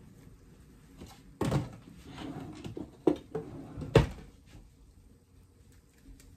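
Cloth bag rustling as its twisted top is handled and closed with rubber bands, with two sharp clicks about three and four seconds in.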